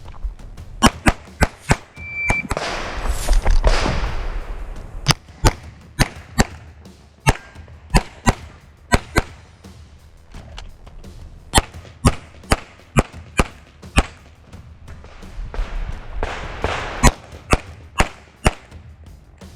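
A string of pistol shots from a CZ 75 TS Czechmate race gun, fired in quick pairs and groups with short pauses between, about thirty in all. Two stretches of rushing noise rise up among the shots, one about three seconds in and one near the end.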